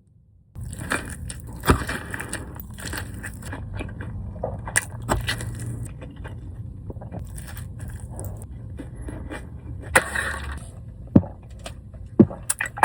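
Close-miked mouth sounds of eating a burger: chewing and biting with wet crackles and several sharp clicks. The sound starts about half a second in.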